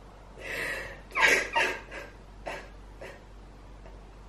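A woman breathing in distress: a drawn breath in, then two loud, short sobbing breaths and a couple of fainter ones.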